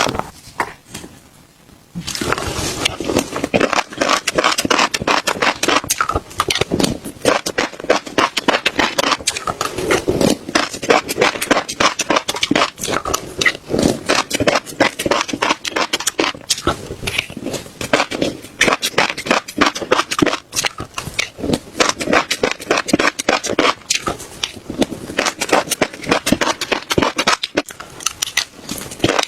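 Close-miked chewing of crunchy seeds: dense, irregular crisp crackling crunches that pause briefly just after the start, then run on without a break.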